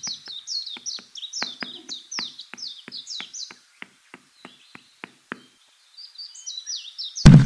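A bird chirping rapidly: a quick run of short, high, falling chirps, about three a second, that pauses for a couple of seconds and then resumes. A single loud thump comes near the end.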